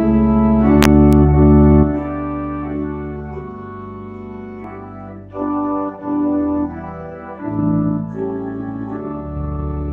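Organ music: slow, sustained chords over deep held bass notes, the chord changing every second or two.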